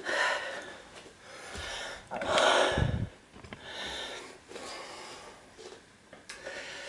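A man breathing hard, with loud noisy breaths in and out about every second, recovering his breath after a set of push-ups with about 10 kg on his back.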